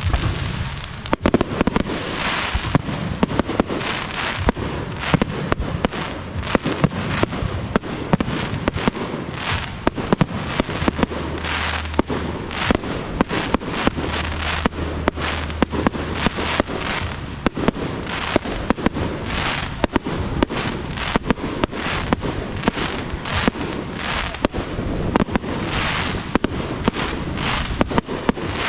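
Fireworks display: aerial shells launching and bursting in quick succession, with many sharp bangs, some overlapping, and crackling between them.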